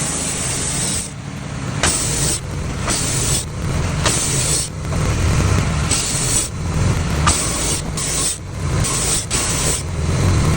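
Wood-Mizer portable band sawmill running, its motor droning steadily while the band blade saws through a log. A hissing cutting noise comes and goes in short stretches, less than a second each.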